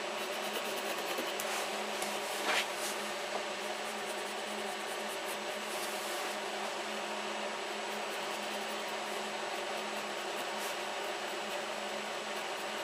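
Steady hiss and low hum of room tone, with faint scratching of a pencil tracing around a paper template on a wooden board. A brief louder rustle comes about two and a half seconds in.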